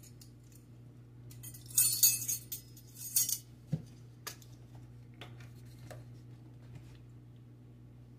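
A squeeze bottle of yellow mustard hissing and sputtering twice as it is squeezed, then a few light clinks of a metal measuring spoon. A steady low hum runs underneath.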